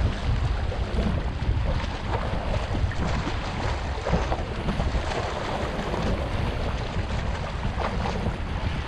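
Wind buffeting the microphone with a steady low rumble, over small waves washing and lapping against breakwater rocks.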